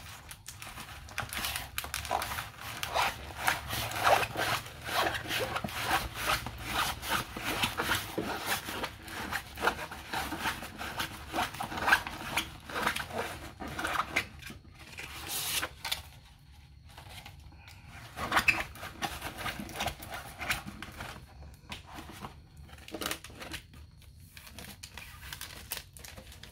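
Paper and plastic wrapping rustling and crinkling as a rolled diamond painting canvas is unwrapped by hand, with many irregular crackles that thin out after about two-thirds of the way through.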